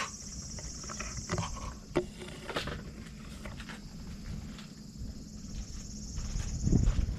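Insects shrilling in a steady high drone, with scattered soft clicks and taps. A low rumble of wind on the microphone comes in near the end.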